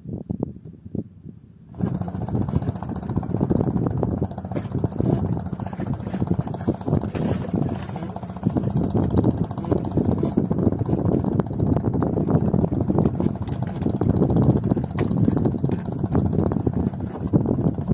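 Small fishing boat's engine starting up about two seconds in, then running steadily under way: a loud, even rumble.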